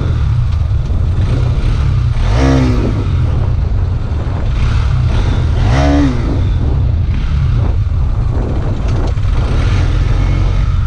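Road vehicle running with a steady low rumble, plus two brief pitched sounds that bend in pitch, about two and a half and six seconds in.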